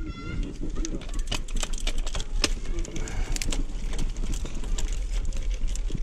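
Road bike running on narrow 25 mm tyres over a rough concrete path, rattling with many irregular sharp ticks and clicks over a steady low rumble. There is a brief squeak right at the start.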